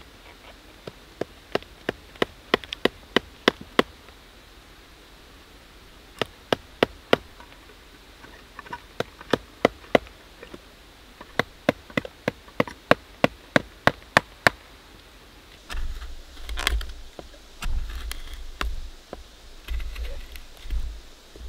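Sharp knocks of hand tools striking wood as spoon blanks are roughed out, irregular and at times several a second. About sixteen seconds in, they give way to a chisel pushing and scraping through the wood, with dull low thuds.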